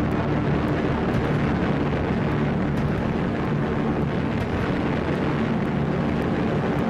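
Propeller aircraft engines droning steadily in flight, an even, unbroken hum.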